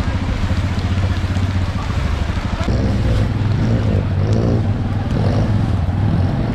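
Motor vehicle engine running steadily on the move, with a low hum and fast even pulsing.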